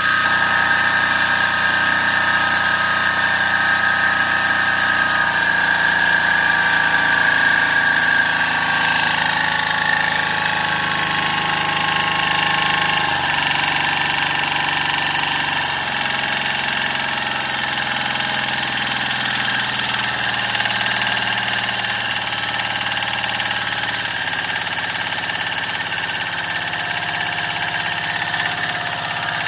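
Acme single-cylinder diesel engine on a 6000-watt generator running steadily, its pitch shifting in small steps a few times. The engine runs smoothly, its stuck injector nozzle now fixed.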